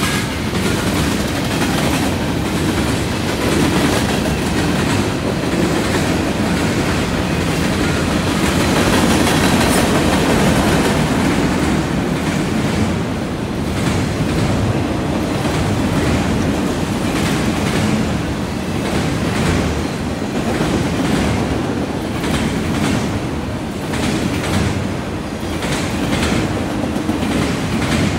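A freight train's cars, autoracks among them, rolling past close by: a steady rumble of steel wheels on rail with a rapid, uneven clicking over the track.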